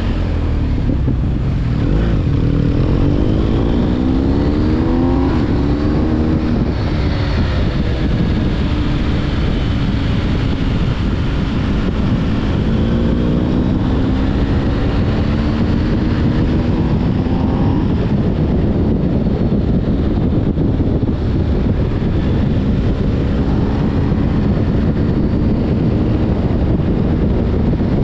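BMW R 1250 GS boxer-twin engine under way, its pitch rising and falling again and again as it accelerates and eases off, over heavy wind and road rumble.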